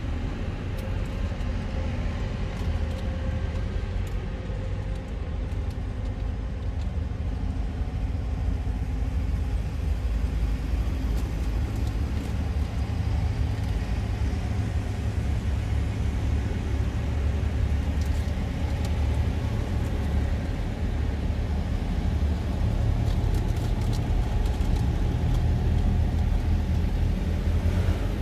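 A line of tractors driving past one after another, their diesel engines making a steady low drone that grows louder in the last few seconds as the next tractors draw close.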